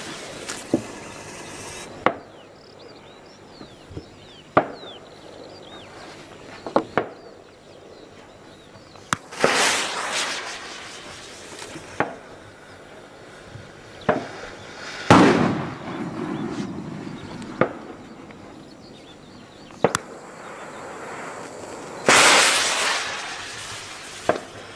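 Firecrackers going off one after another: about a dozen separate sharp bangs spaced a second or more apart, the loudest about 15 s in trailing a low rumble. Twice, around 10 s and 22 s in, there is a longer hissing crackle of about a second and a half.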